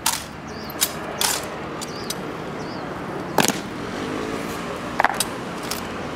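Sharp clacks of an honor guard's bayoneted drill rifles being swung and slapped in unison: about six separate hits, the loudest about three and a half seconds in and a quick pair around five seconds in.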